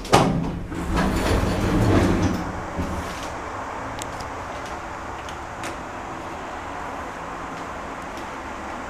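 A lift's automatic sliding doors close with a knock right at the start and rumble for a second or two, followed by a steady running noise.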